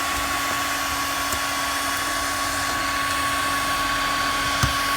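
Heat gun running steadily, its fan motor giving a continuous whine over the rush of hot air, used to soften the adhesive behind a car emblem. A brief click comes near the end.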